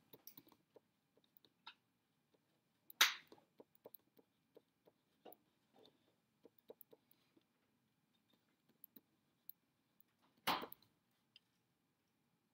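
Faint scattered clicks and taps of a pen on a tablet as equations are handwritten, with a louder short noise about three seconds in and a dull knock about ten and a half seconds in.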